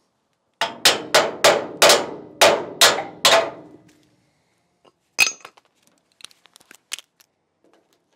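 Hammer blows on steel: about eight quick ringing strikes over some three seconds, tapping a steel frame rail piece up into position under the trailer deck. Then one more sharp metallic knock and a few light clinks.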